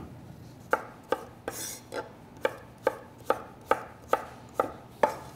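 Chef's knife dicing celery root on a wooden cutting board: a steady run of chops, a little over two a second.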